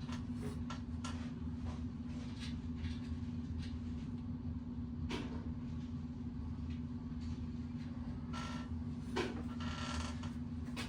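Scattered creaks, clicks and short scrapes of bicycle parts being handled and worked on, over a steady low hum.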